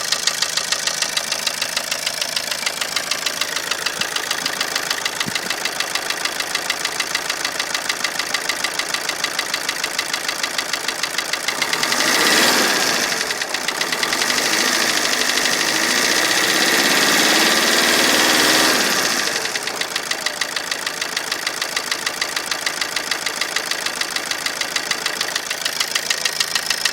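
Opel Combo 1.3 CDTI four-cylinder diesel engine idling with a regular knock, several beats a second. About halfway through it is revved up for several seconds, the beat blending into the steadier sound, then drops back to idle and the knock returns.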